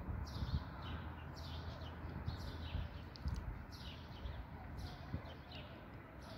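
Small birds chirping, a string of short, quick, falling calls several times a second, over a steady low rumble.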